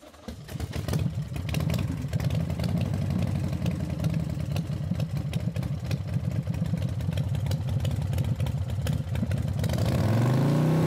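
An engine running with a rapid, uneven clatter. Near the end it revs up in pitch and settles into a steady higher hum.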